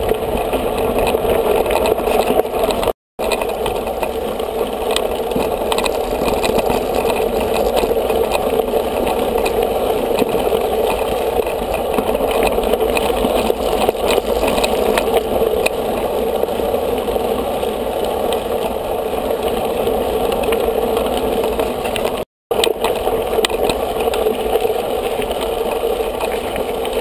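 Mountain bike riding over gravel and dirt tracks: a steady rolling and wind rumble as heard through a camera mounted on the moving bike. It drops out briefly about three seconds in and again after about twenty-two seconds.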